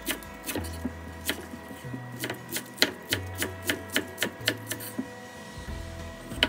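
Kitchen knife chopping cabbage on a wooden cutting board: quick sharp knocks of the blade on the board, about three a second, thinning out to a few single knocks near the end.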